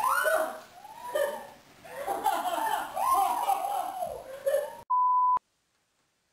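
Excited voices and laughter, cut off about five seconds in by a steady, high-pitched censor bleep lasting about half a second, then dead silence.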